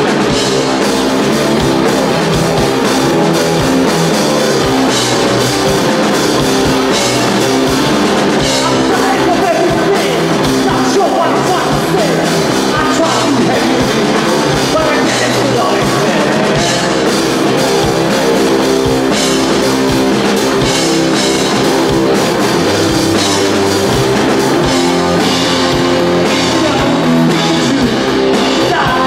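Rock band playing live: electric guitar, bass guitar and drum kit, with a male lead singer. The music is loud and steady, with no pauses.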